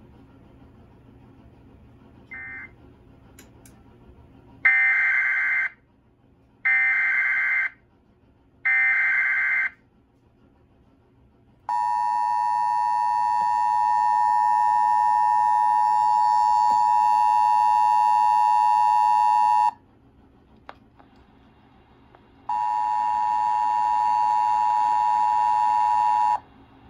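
Emergency Alert System (EAS) alert tones. The digital SAME header screeches three times, about a second each with a second's pause between, then the two-tone EAS attention signal sounds steadily for about eight seconds. After a short gap, a second, shorter steady alert tone of about four seconds follows.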